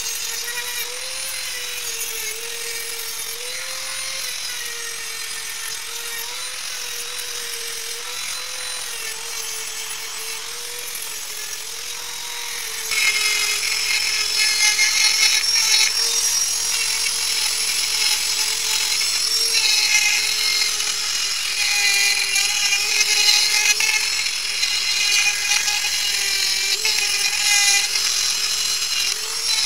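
High-speed corded rotary tool running with a steady whine while its bit grinds and wire-brushes the steel of an anvil, dressing the hardy hole and the face. The grinding grows louder and harsher about 13 seconds in as the bit bites harder into the metal.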